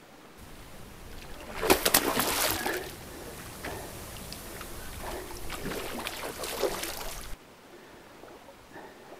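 A hooked pike thrashing at the water's surface beside the landing net, close to the microphone, with splashing and sloshing. The heaviest splashes come about two seconds in and again around five to seven seconds, and the sound cuts off suddenly near the end.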